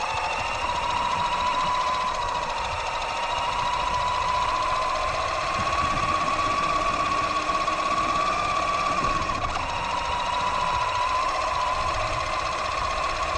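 Axial Yeti XL RC truck's electric motor and gear drivetrain whining steadily as it drives, the pitch rising a little about halfway through and dropping back a few seconds before the end, over a low rumble of the tyres on the asphalt, heard from a microphone on the truck.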